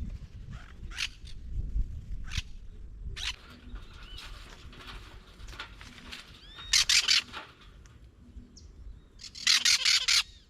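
Parrots calling: scattered harsh squawks and a few whistled calls, then two loud bouts of rapid squawking, about two-thirds of the way through and near the end.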